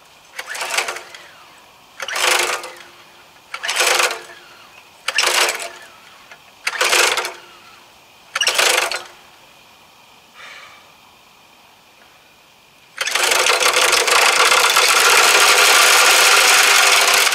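Gas walk-behind string trimmer being pull-started: a run of recoil-starter pulls about every one and a half to two seconds, the last one weaker, then the engine catches about thirteen seconds in and runs steadily and loudly. The brand-new machine is hard-starting, needing about seven pulls.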